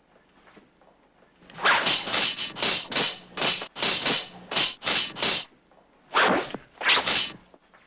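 Swordplay from a fencing duel: a rapid run of about a dozen sharp sword strokes, swishing and scraping, followed by two more strokes near the end.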